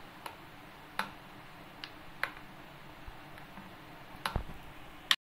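Steel spoon stirring thick homemade lemon dish-wash liquid in a glass bowl, clinking against the glass about six times at irregular intervals.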